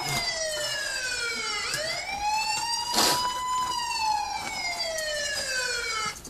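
An emergency vehicle siren wailing: its pitch slides slowly down, sweeps back up about two seconds in, then slides slowly down again before cutting off near the end. A sharp knock sounds about halfway through.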